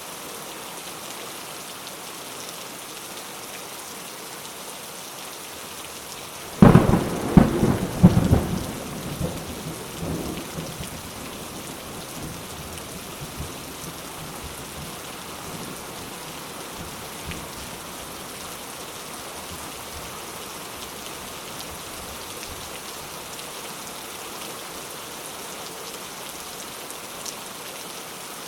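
Steady rain falling, with a sudden thunderclap about seven seconds in that rumbles on in a few further peals and fades over the next few seconds.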